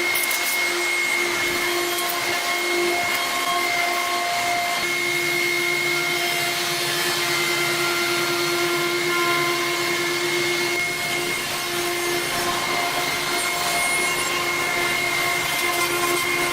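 CNC router spindle running and cutting into wood: a steady whine with a hiss of cutting, its tones dipping and returning a few times as the load changes.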